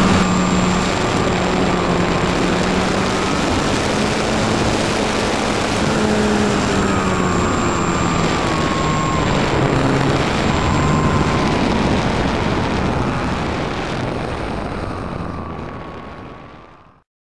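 Small electric RC plane's brushless motor and propeller whining over rushing air, heard from on board, the pitch sliding up and down as it flies. The sound fades away over the last few seconds and stops just before the end.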